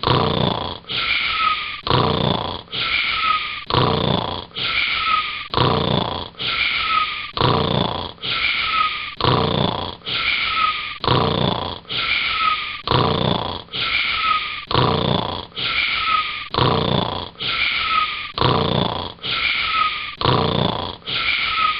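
Cartoon-style snoring sound effect: the same short snore repeated in an unvarying loop, roughly once a second.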